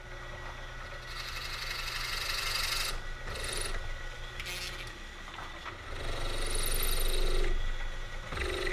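Milling machine spindle running as a short screw-machine-length drill spot-drills a cast iron casting, the cutting noise louder in two stretches, about a second in and again near the end. The drill is rubbing on a hard spot in the casting's face and dulling rather than cutting cleanly.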